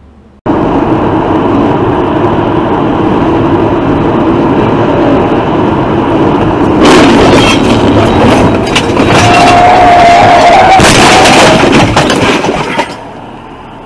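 Loud road and wind noise inside a car at highway speed. From about seven seconds in comes a jumble of bangs, crackles and scraping as the car crashes and spins, with a wavering tyre screech for about two seconds in the middle; it cuts off a second before the end.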